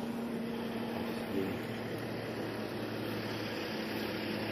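An engine idling steadily, a constant low hum with a light knock about a second and a half in.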